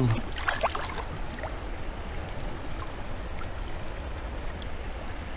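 Steady rushing of river rapids, with a few short splashes in the first second as the netted trout is handled.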